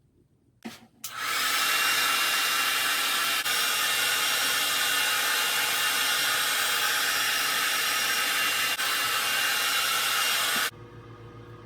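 A handheld hair dryer clicks on and blows steadily for about ten seconds, then cuts off sharply near the end, leaving a faint low hum.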